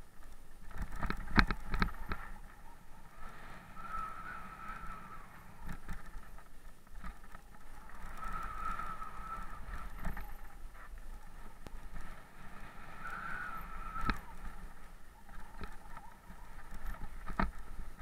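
Mountain bike descending a dirt trail, heard from a camera on the bike or rider: tyres rumbling over dirt and loose stones, with the bike clattering in sharp knocks over bumps, several in quick succession near the start. A high wavering whine comes and goes every few seconds.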